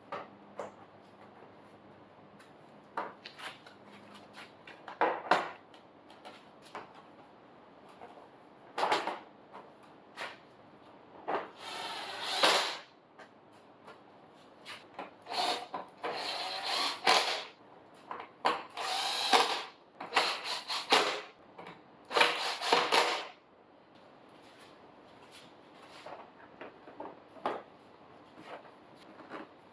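Handheld power tool run in short bursts of about half a second to a second and a half, several times over, with scattered clicks and knocks between the bursts.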